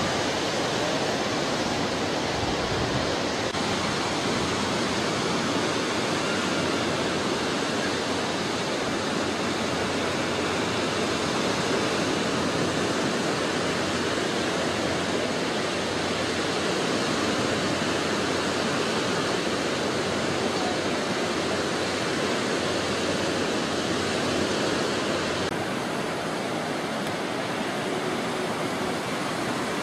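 Steady rush of ocean surf breaking on the beach, a little quieter near the end.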